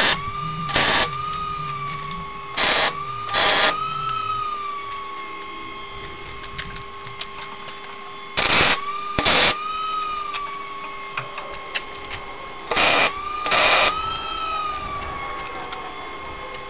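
MIG welder laying tack welds: eight short bursts of arc, each about half a second, in four pairs a few seconds apart. The welder is a Lincoln Electric Power MIG 210 MP.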